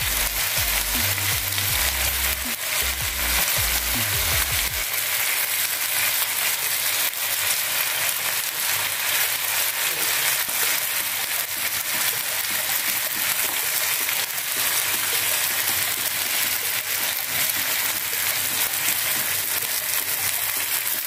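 Whole fish sizzling steadily in a hot double-sided grill pan while margarine is brushed over them with a basting brush.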